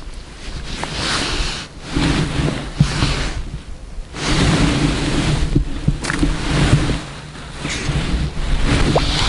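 Wind buffeting the microphone in gusts: a rushing noise that swells and drops every second or two.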